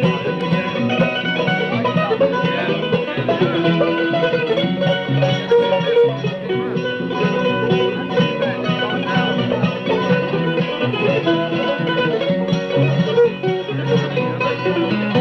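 Bluegrass string band playing an instrumental break between verses, with banjo and guitar picking over upright bass.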